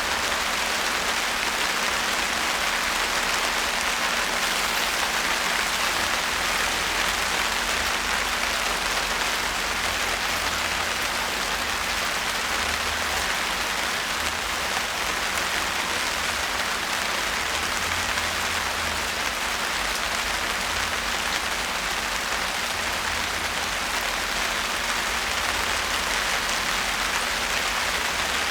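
Steady rain falling, an even, dense hiss of drops that holds the same level throughout.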